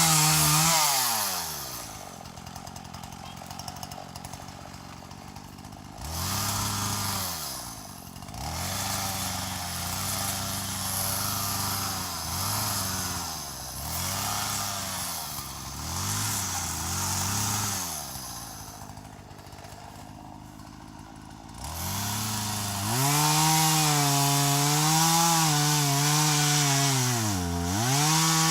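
Gasoline chainsaw revved in a string of short bursts, its engine pitch rising and falling, with quieter low running in between. Near the end it is held at high revs for several seconds, dipping once, as it cuts through a tree.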